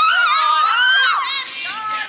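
A child's high-pitched excited scream, held about a second and a half with a wavering pitch, as a hit ball flies for a home run. Music comes in near the end.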